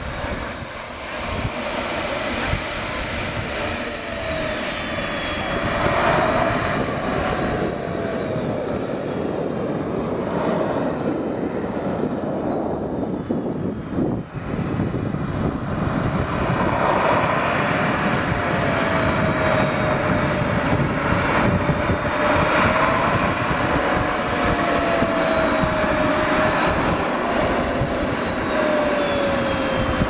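Miniature gas turbine of a radio-control model jet running on the ground: a loud steady rush with a high whine that slowly rises and falls in pitch several times as the throttle is worked.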